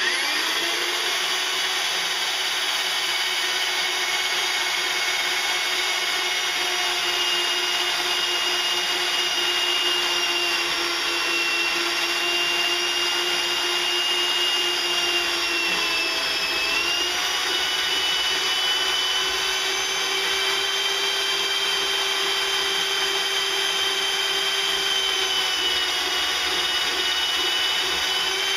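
Harbor Freight portable variable-speed band saw running steadily as its blade cuts through 3/8-inch-thick steel flat bar, a constant high-pitched motor and blade whine. About halfway through, the pitch sags briefly under load and then recovers.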